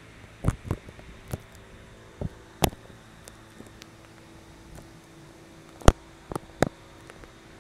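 About eight short, sharp knocks and taps at irregular intervals over a steady background hiss, the loudest a little after two and a half seconds and near six seconds in.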